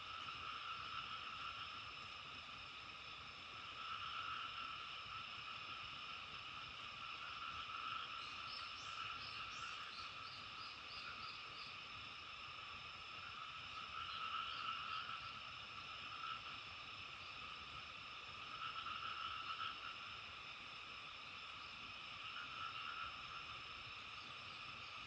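A dense chorus of frogs calling continuously, swelling and ebbing every few seconds. About a third of the way in, a bird adds a quick run of short high notes.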